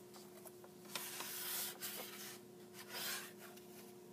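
A picture book's paper page turned by hand: a rustle of paper rubbing for just under a second, then a shorter rustle as the new spread is smoothed down, with a few light taps and a faint steady hum underneath.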